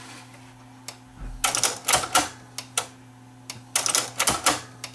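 Cassette deck mechanisms of a Panasonic RX-DT680 boombox clicking and clattering in two quick runs, about a second and a half in and again near the end, over a steady low hum. The deck fails to work properly because its oxidised detector switches still make poor contact after a spray of contact cleaner.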